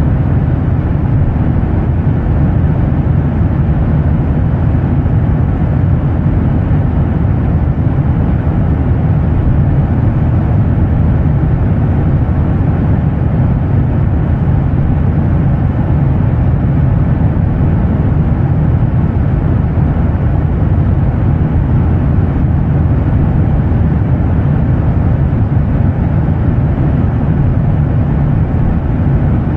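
Airliner jet-engine drone: a steady, unchanging low rumble.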